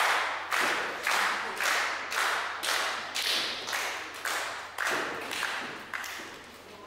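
Wrestling crowd clapping in unison, about two claps a second, each clap echoing in the hall. The claps grow fainter toward the end.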